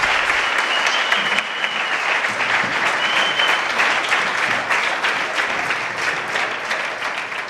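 Audience clapping in a room, tapering off gradually toward the end.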